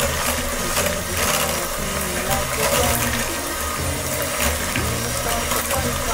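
Electric hand mixer running steadily, its twin beaters churning a thin, wet cream cheese mixture in a glass bowl.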